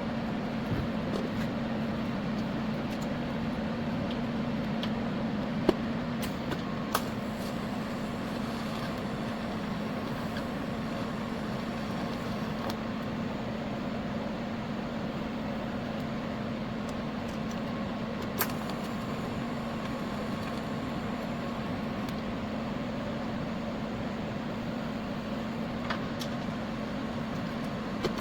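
TIG welding arc on the snowblower's steel, ER70S-6 rod being fed in: a steady hum and hiss with a few sharp clicks scattered through it.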